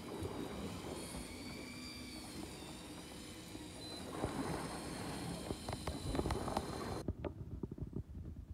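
A steady low rumble on the boat, with a thin steady whine that fits an electric fishing reel winding in a hooked fish under load. From about halfway through there is a run of short clicks and knocks.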